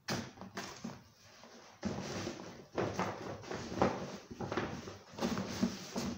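Hands rummaging through clothes inside a large non-woven shopping bag, rustling and crinkling in irregular bursts.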